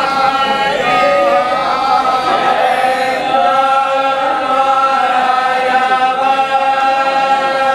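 A group of men chanting in unison, holding long drawn-out notes that rise and fall slowly.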